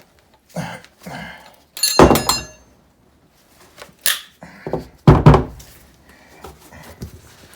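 Knocks and clatter from objects being handled: a loud metallic clatter with a short ringing about two seconds in, a sharp click about four seconds in, and a heavy thump about five seconds in.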